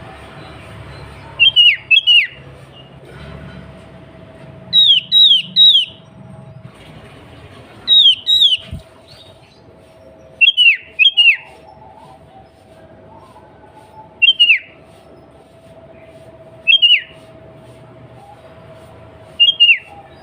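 Sooty-headed bulbul calling: short, sharp down-slurred notes in clusters of one to three, repeated every two to three seconds. A faint steady hum sits underneath.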